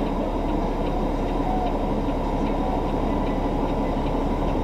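Steady engine and road rumble of a semi truck heard inside its cab while driving, with faint ticking at an even pace.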